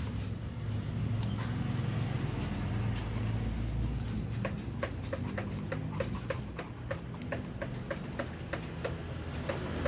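Snap-off utility knife slicing through a cactus stem over a steady low hum, with a run of evenly spaced light clicks, about three a second, from about halfway in.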